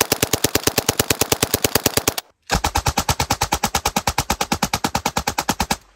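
Auto-Ordnance Thompson submachine gun in .45 ACP firing on full auto, a steady string of about ten shots a second. The string breaks off just over two seconds in, then a second long string runs on and stops just before the end.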